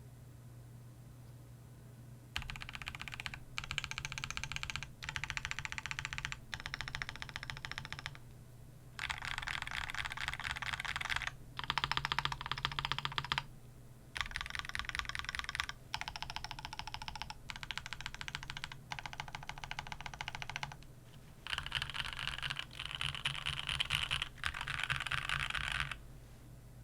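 Typing on a custom mechanical keyboard with a Lego-built case, carbon fibre plate, gasket mounting and stock Vertex V1 switches. Dense runs of key clacks come in bursts of one to two seconds with short pauses, starting about two seconds in.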